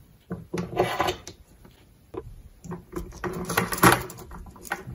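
Knocks and scraping as a soldering iron handpiece is pulled out of its stand on a soldering station, in a few short bursts, the loudest about four seconds in.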